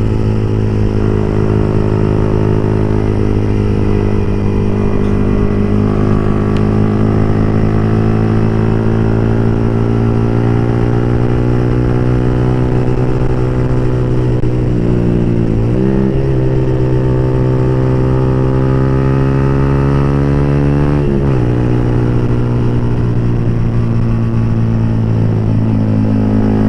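Yamaha R15 v3's single-cylinder engine with an open exhaust pipe, running steadily under way. Its pitch drifts slowly and dips briefly twice, about halfway and about four-fifths of the way in, as in gear changes.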